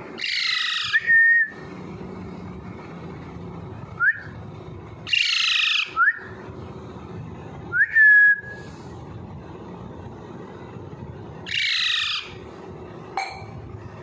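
Baby parakeet calling: three harsh, raspy squawks about five to six seconds apart, with short sliding whistled chirps between them.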